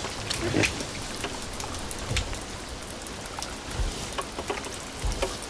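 Rain falling with many small drops pattering and dripping, joined by a dull low thump about every second and a half.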